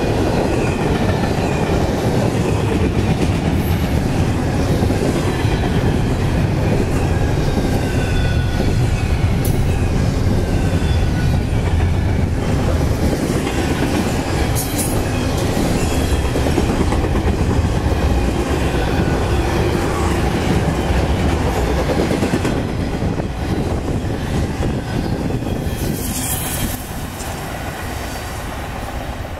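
Double-stack intermodal freight train rolling past at speed: a steady rumble and clatter of steel wheels on rail, with faint wheel squeal. The sound fades over the last several seconds as the end of the train goes by and moves away.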